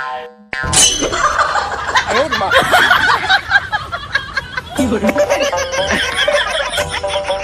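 People laughing and snickering. Background music with steady notes comes in under the laughter about five seconds in.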